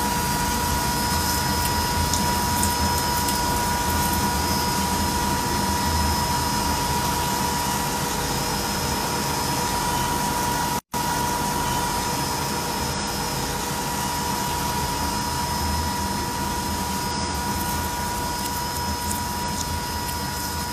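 Metal lathe running steadily as a long 3 mm drill bores into the end of a spinning steel bar, a constant machine hum with a steady high whine. The sound breaks off for an instant about halfway through.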